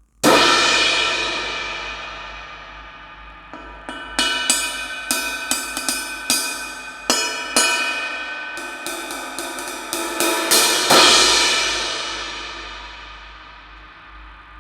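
Istanbul Agop 20-inch Brilliant crash cymbal, freshly repaired, struck hard and left to ring and fade. It is then played with a run of quicker stick strikes for several seconds, and crashed hard again near the end, ringing out as it fades.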